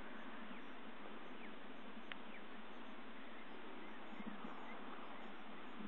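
A steady, even open-air hiss with a few faint, short high chirps of birds scattered through it.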